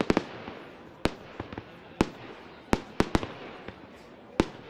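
Aerial firework shells bursting: about eight sharp bangs at irregular intervals, a few in quick pairs, each trailing off briefly.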